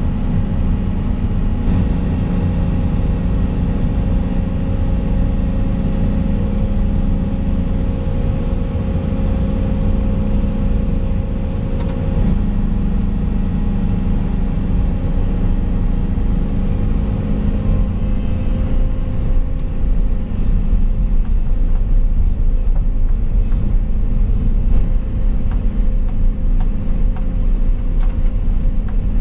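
Volvo EC220 excavator's diesel engine running steadily under hydraulic load, heard inside the cab while the boom swings a suspended pipe. A faint steady whine stops about twelve seconds in, and the rumble grows a little louder from about twenty seconds on.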